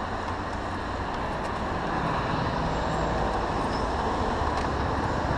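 Road traffic going by: a steady rush of noise with a low vehicle rumble that grows slightly louder.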